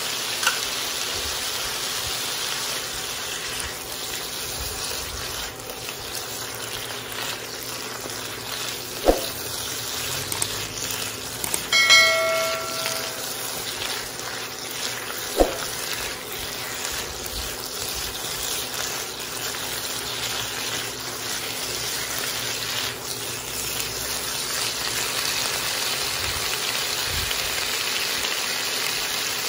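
Chayote squash and onion strips sizzling steadily in oil in a nonstick wok over high heat. There are a couple of light knocks, about nine and fifteen seconds in, and a brief chime around twelve seconds in.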